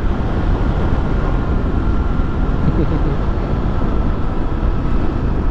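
Honda XRE300 single-cylinder engine running steadily while cruising at around 80 km/h, mixed with wind rush on the helmet-mounted microphone.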